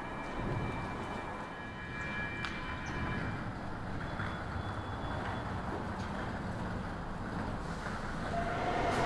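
Stockholm metro train running: a steady rumble with thin high whining tones and a few clicks, and a louder whine that sets in near the end.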